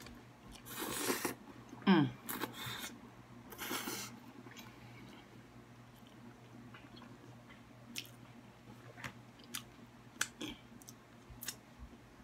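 Spaghetti in meat sauce being slurped into the mouth in a few loud sucking pulls over the first four seconds, with a short falling hum about two seconds in. Then quiet chewing with small wet mouth clicks.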